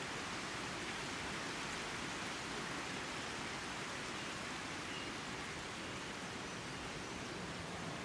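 Steady field-recorded outdoor ambience: an even rushing hiss with no distinct events.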